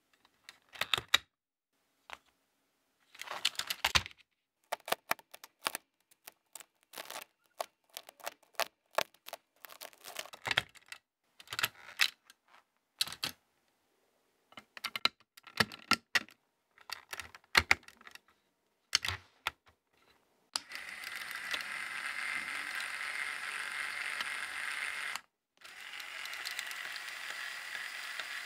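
Plastic Lego Technic parts clicking and tapping as they are handled and fitted by hand. About twenty seconds in, a small Lego electric motor starts whirring steadily through its plastic gears to drive the bridge leaves, stops for a moment, and starts again.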